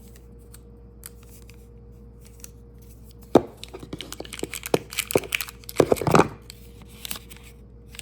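Packaging of the iPad's charging brick and cable being handled: a few light taps, a sharp knock about three seconds in, then a few seconds of rustling and tearing of the wrapping.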